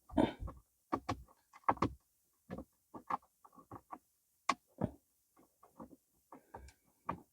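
Irregular small clicks and knocks of hands and a tool working at plastic dashboard trim while a screw is fitted back in.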